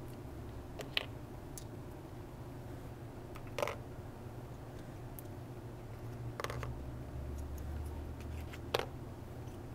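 Small plastic Lego pieces tapping as they are picked up and set into the foil-lined holes of a homemade cardboard Operation board: four light taps a few seconds apart over a steady low hum.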